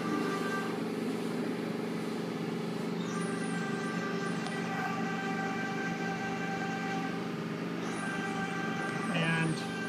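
Steady mechanical hum made of several fixed tones, with a short louder sound about nine seconds in.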